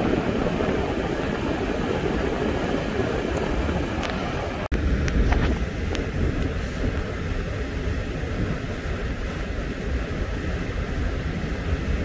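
Steady engine and road noise inside a four-wheel-drive vehicle driving on a snowy highway in a blizzard, a heavy low rumble throughout. A momentary drop-out comes about five seconds in.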